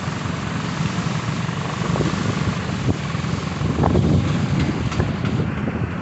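Wind buffeting the microphone over a motorcycle engine running while riding along a wet, flooded road.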